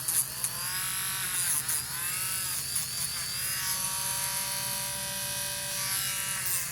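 Small electric rotary tool with a sanding drum running, grinding down a parrot's toenails. Its whine sags in pitch a few times in the first half as the drum presses on the nail, then holds steady.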